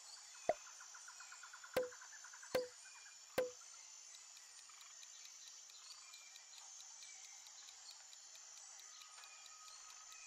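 Quiz-video sound effects: four short pops in the first few seconds, then a faint, fast countdown ticking over a steady hiss.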